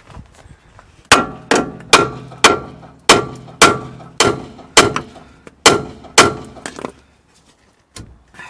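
Hammer striking metal about ten times at roughly two blows a second, each blow ringing on briefly, then stopping; a single light tap follows near the end.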